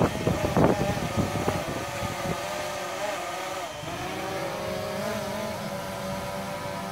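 DJI Phantom 3 quadcopter's motors and propellers humming in flight, a steady pitched whine that wavers slightly as the drone adjusts. Gusts of wind buffet the microphone during the first second or so.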